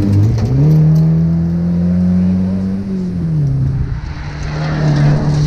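Rally car engine under hard driving, heard from inside the car: the revs jump about half a second in and climb steadily, then fall away after about three seconds and build again near the end.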